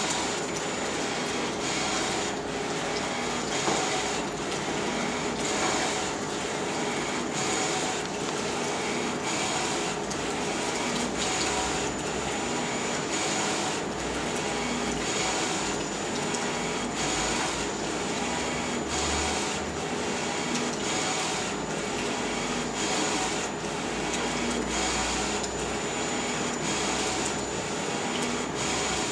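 Flatbed direct-to-garment T-shirt printer running: a steady mechanical whir with a faint high whine, pulsing evenly a little faster than once a second as the print-head carriage sweeps back and forth across the shirt.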